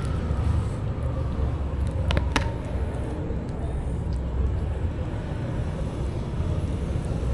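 Outdoor market ambience: a steady low rumble, with two short clicks about two seconds in.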